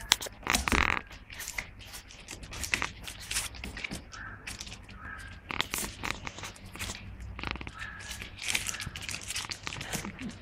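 Six-week-old puppies moving about on newspaper in their pen: irregular crinkling, scratching and rustling, with a few short, faint squeaks.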